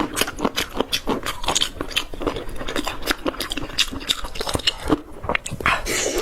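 Close-up crunchy chewing and biting of food: a rapid, irregular run of crisp crunches, with a brief pause near the end.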